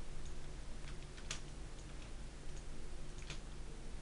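Computer mouse clicking: two sharp clicks about two seconds apart, with a few fainter ticks, over a low steady hum.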